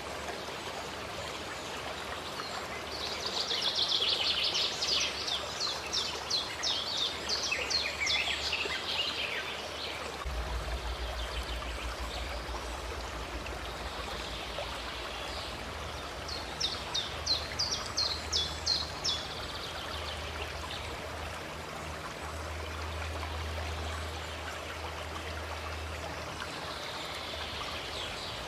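Steady rush of running water from a stream, with a songbird singing twice over it in runs of rapid repeated high notes.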